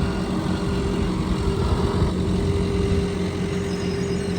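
An engine running steadily at a constant pitch, with a low rumble beneath.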